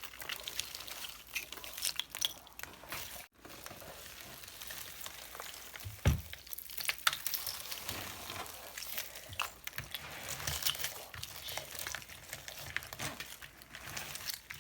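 Slime with plastic beads and sprinkles mixed in being kneaded and stirred by hand: a steady stream of small wet clicks and crackles. A single dull thump about six seconds in.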